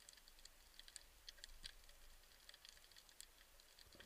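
Faint underwater ambience: an irregular scatter of tiny sharp clicks and crackles, several a second, heard through an underwater camera.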